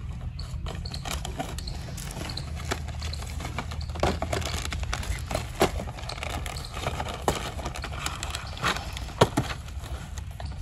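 Cardboard firecracker boxes being handled, opened and set down: scattered light knocks, taps and scraping over a steady low background rumble.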